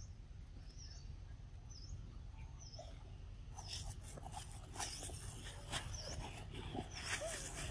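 A bird repeating a short high chirp about once a second over a low outdoor rumble. From about halfway in, scattered clicks and rustles join in.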